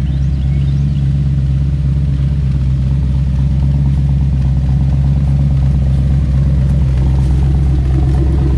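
Classic Ford Bronco's engine idling steadily, a deep, even engine note.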